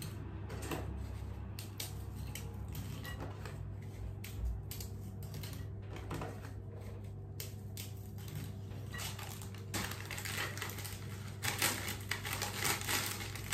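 Crisp biscuits being snapped into pieces by hand and dropping into a bowl: a run of small dry cracks and clicks, busier near the end, over a steady low hum.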